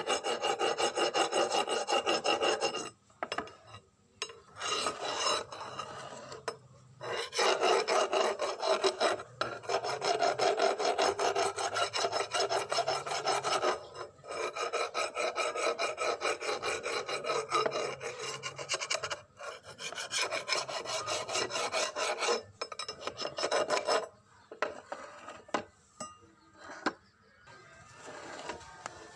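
Abrasive rasping, like filing or sanding, worked in long continuous runs with brief pauses, turning fainter and intermittent for the last few seconds.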